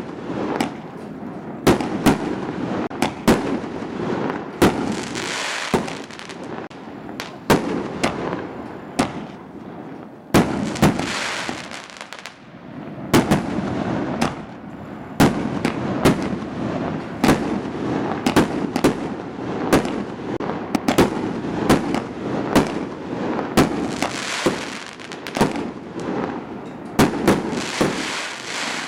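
Aerial fireworks display: shells bursting in quick, irregular succession, many sharp bangs over a continuous noisy wash. There is a brief lull about twelve seconds in.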